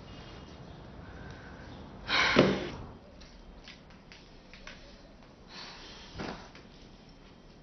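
A woman's loud, sharp huff of breath about two seconds in, followed by a few faint taps and knocks and a second, softer breath near six seconds.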